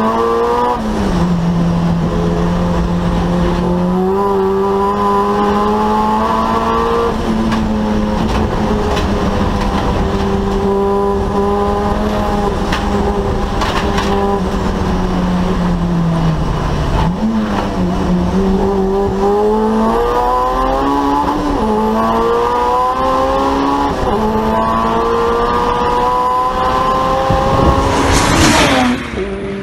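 Onboard sound of a turbocharged Honda B18 1.8-litre four-cylinder (BorgWarner EFR 7670 turbo) race engine at speed around a circuit. The pitch climbs through each gear and drops at every upshift, with several quick shifts in a row about two-thirds of the way through. Near the end a car passes close by with a brief loud rush.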